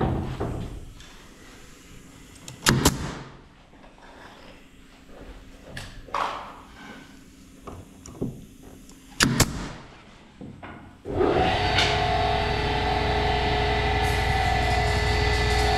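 A few separate knocks, with a double knock near the middle, as furniture parts are tapped and handled. About 11 seconds in, a workshop machine starts suddenly and runs steadily with a constant hum.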